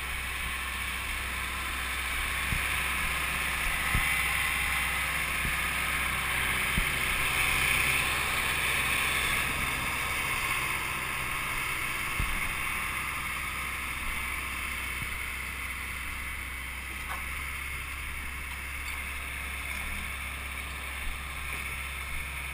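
Diesel machinery running steadily: a constant low engine drone from the trailer-mounted dewatering pump and the excavator, with a steady hiss over it that is louder in the first half, and a few faint knocks.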